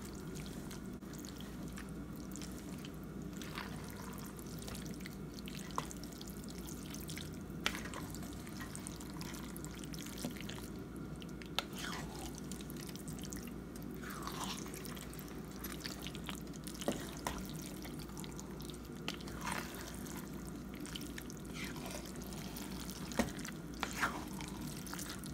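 Spaghetti and thick meat sauce being stirred and folded with a wooden spoon in a skillet: scattered soft wet plops and squelches every second or two over a steady low hum.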